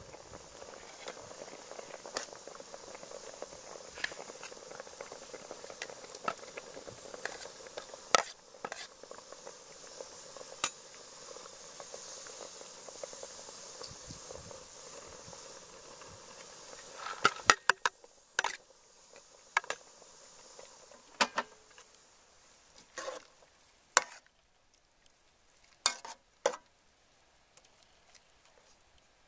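Fish broth boiling in an aluminium pot, a steady bubbling hiss with scattered small ticks. After about seventeen seconds the bubbling gives way to a metal spoon knocking and clinking against the pot a dozen times.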